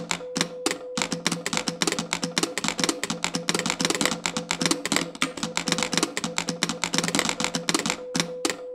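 A row of mechanised telegraph keys clattering out Morse code, many rapid overlapping clicks a second, spelling out the text shown letter by letter. A steady hum runs underneath.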